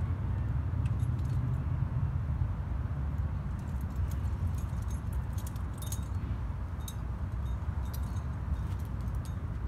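Metal climbing gear, carabiners and cams on a harness rack, clinking in scattered light jingles, most of them in the second half, over a steady low rumble.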